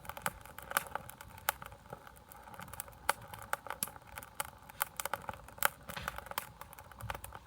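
Wood campfire burning, with irregular sharp crackles and pops, several a second.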